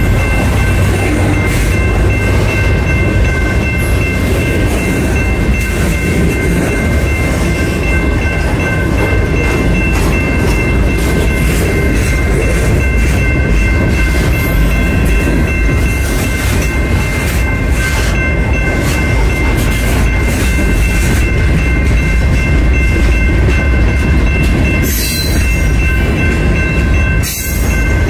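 CN freight train rolling past: a loud, steady rumble of wheels on rail, with a steady high ringing over it.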